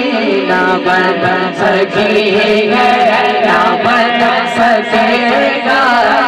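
A man singing an Urdu naat into a microphone, holding long wavering melismatic notes without words, over a steady low drone.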